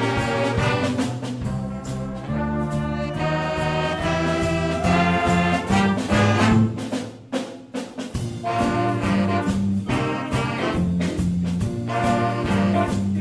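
Middle school jazz band playing live: horn-section chords over a low, moving bass line and drums. About seven seconds in the band drops out briefly to a few drum hits, then the full band comes back in.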